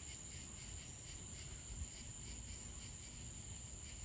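Crickets chirping: a steady high trill with a fainter chorus pulsing several times a second beneath it, over a low rumble.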